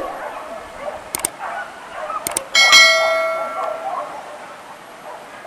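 A few sharp clicks followed by a bright bell ding that rings out and fades over about a second and a half: a subscribe-button sound effect of a mouse click and notification bell.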